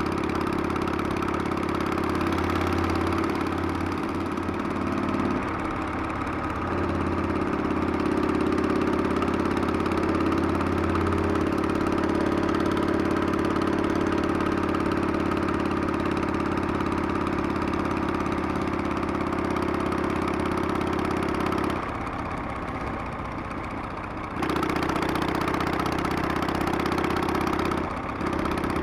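Harley-Davidson Sportster V-twin engine running steadily while riding, with a rushing noise over it. The engine note drops off briefly twice, longest for a couple of seconds near the end.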